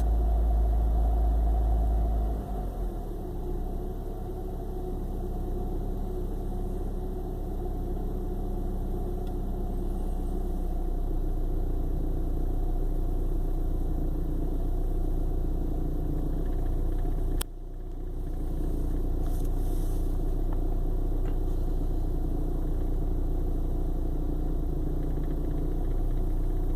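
1995 BMW 318i four-cylinder engine idling roughly and sputtering as if misfiring, even though its spark plugs are new. The low rumble shifts about two seconds in, and about two-thirds through a sharp click comes with a brief dip in the sound before the running picks up again.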